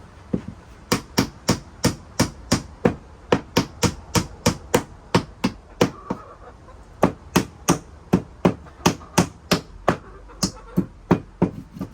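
Hammer tapping finishing nails in the wooden treads of a chicken-coop ladder: two quick runs of sharp, evenly spaced strikes, about three a second, with a short pause midway.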